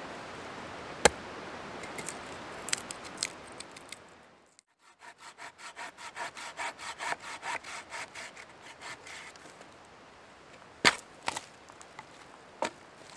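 Wood being split for kindling with a knife: one sharp crack about a second in, over a steady hiss. Then a small saw cuts a dry branch in quick, even strokes, about four a second, followed by a few sharp wood cracks near the end.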